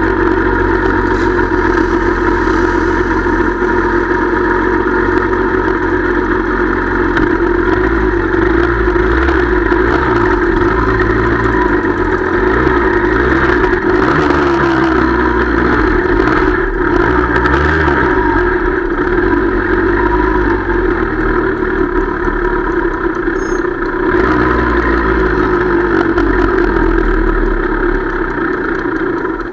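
Motorcycle engines idling steadily, with revs rising and falling several times in the middle.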